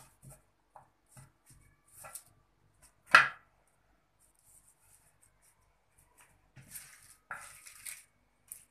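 A kitchen knife cutting lettuce on a wooden cutting board: scattered light cuts and scrapes, with one loud short sound about three seconds in and a longer stretch of crisp cutting near the end.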